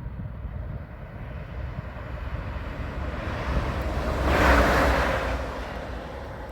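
A train passing by: a rushing noise that swells to a peak about four and a half seconds in and then fades, over a steady low rumble of wind on the microphone.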